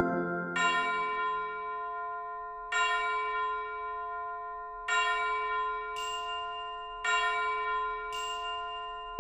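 Background music: slow, bell-like chime tones struck about every two seconds, each left to ring and fade, with a brighter higher note added twice near the end.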